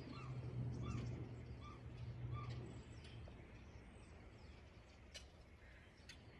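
A bird calling a run of short, repeated notes, about two a second, that thin out and stop about halfway through, over a low steady hum. Two sharp clicks near the end.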